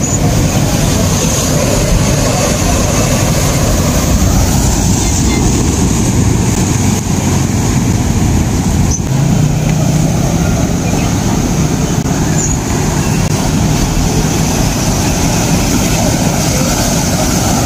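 Ocean waves breaking and washing over rocks: a continuous loud rush of surf with a heavy low rumble.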